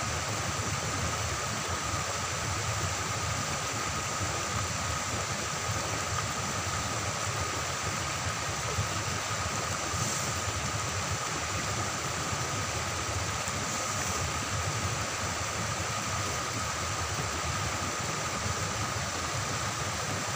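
Steady rushing of water from a small weir and rocky stream, with a faint steady high tone running through it.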